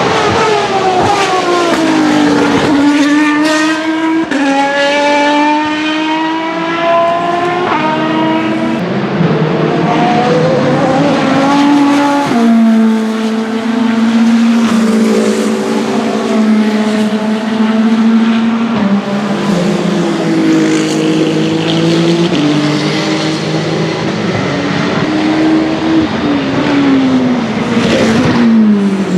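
WEC Hypercar-class endurance prototypes at racing speed, with more than one car heard at times. Engine pitch falls as they slow, then climbs in a series of steps with sudden drops between them as they shift up through the gears, then holds fairly steady before falling again near the end.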